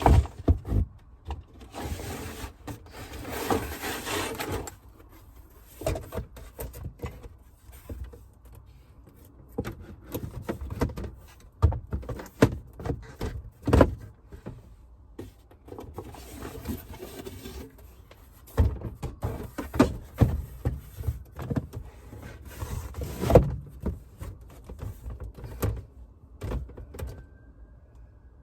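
Belongings being handled and shifted around in a confined space: irregular knocks and thumps, with stretches of rustling.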